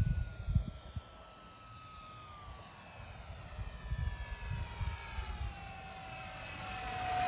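Electric motor and propeller of a radio-controlled Cessna 182 model whining on landing approach, the pitch falling in steps as the throttle is eased back and growing louder near the end as the plane comes in low. Wind buffets the microphone briefly at the start.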